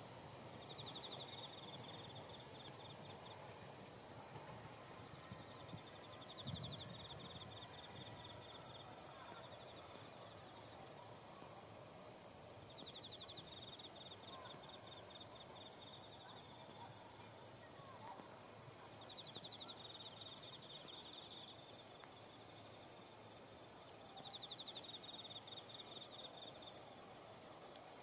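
Insects calling: a steady high trill, with a second insect's pulsed trill lasting about two seconds and repeating about every six seconds. A soft low thump about six seconds in.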